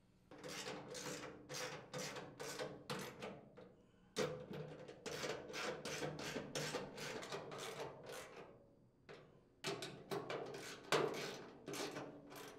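Ratchet of a socket wrench clicking in quick back-and-forth strokes as mounting nuts are run down and tightened on the chipper shredder's steel housing. The strokes come in three runs with short pauses between them, as the socket moves from nut to nut.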